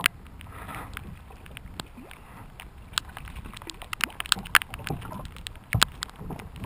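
Water sloshing against a kayak's hull with scattered sharp clicks and knocks as the angler moves about and handles gear on board, one heavier knock near the end.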